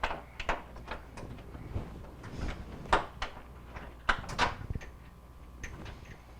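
Scattered knocks and clicks of hardware being handled as the microwave's mounting bolts are fitted up through the wall cabinet. A faint steady tone runs through the last couple of seconds.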